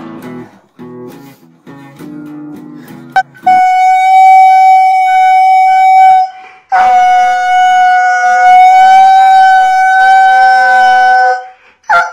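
An acoustic guitar being strummed for a few seconds, then a husky-type dog howling twice in long, steady, high notes, the second howl longer than the first.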